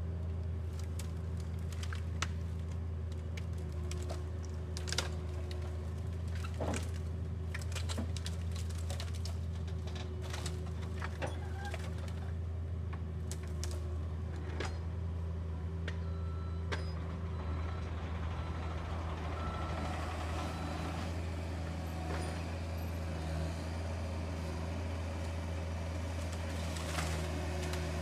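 Mini excavator's diesel engine running steadily as its rotating grapple loads brush. Sharp cracks and snaps of branches come through, most often in the first half.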